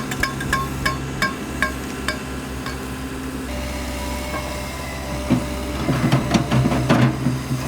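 Diesel engine of construction equipment running steadily, with a series of sharp metallic clanks that slow down and stop about three seconds in, then a burst of irregular knocks near the end.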